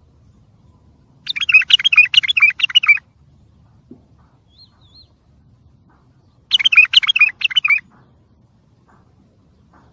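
Wild bulbul singing two quick bursts of fast warbling phrases, each a second or two long and a few seconds apart, with a few faint high chirps in between.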